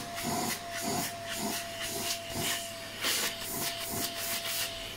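Neakasa P0 Lite grooming vacuum running, with a steady motor whine under a rushing suction hiss. The hiss swells and fades about twice a second as the long crevice nozzle is worked into the crevices of a chair.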